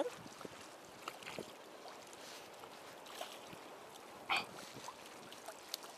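Faint harbourside water and wind noise, with a few small irregular clicks and one short louder sound about four seconds in.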